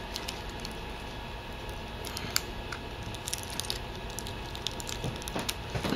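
Scattered small clicks and crinkles of fingers working a netbook LCD's ribbon-cable connector and its holding tape loose, over a steady low background hum.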